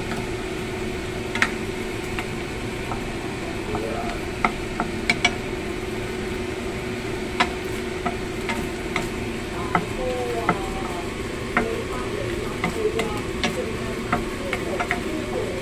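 A wooden spatula stirring sliced beef in a wok, giving many short, irregular clicks and scrapes against the pan. Underneath, the beef sizzles in its own little juice over a steady hum.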